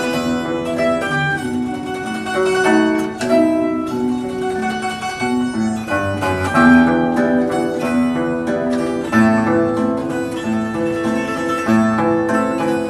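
Taishōgoto (Japanese keyed zither) playing a melody, accompanied by a guitar.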